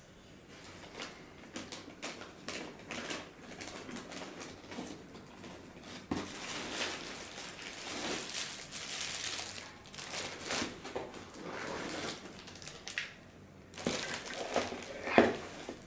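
Plastic packaging crinkling and rustling as parts are unpacked from a box, with scattered light clicks and knocks.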